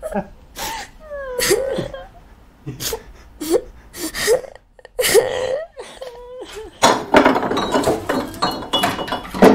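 A person sobbing and gasping in short, wavering cries broken by catches of breath. About seven seconds in, a dense clinking and clattering of glassware and ornaments takes over.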